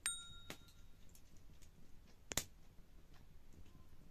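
Open wood fire crackling faintly with scattered small ticks and sharp pops, the loudest about two and a half seconds in. A click with a brief ringing tone comes right at the start.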